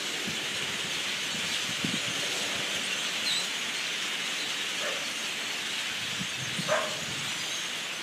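A huge flock of small dark birds calling all at once, blending into a steady, dense, hissing din of chatter with no single call standing out.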